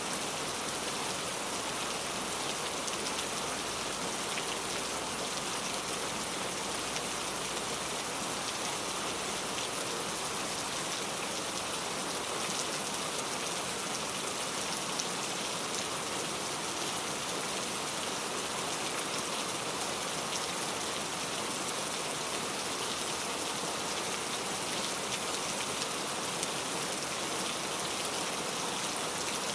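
Steady rain falling on a surface, a dense even hiss dotted with the ticks of individual drops.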